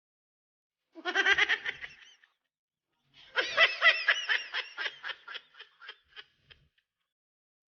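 High-pitched laughter in two bouts: a short burst, then a longer run of rapid ha-ha pulses that gradually trail off.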